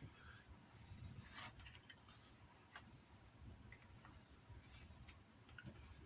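Near silence with faint scratchy rustles from a thin leather lace being pulled through a leather pouch and handled by hand.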